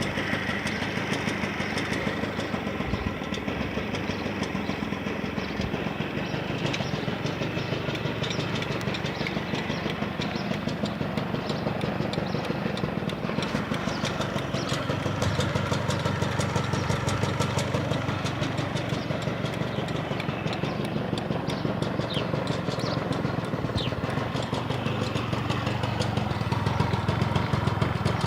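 Honda Lead 90 scooter's two-stroke single-cylinder engine running steadily near idle, with a rapid, regular knocking clatter from inside the motor.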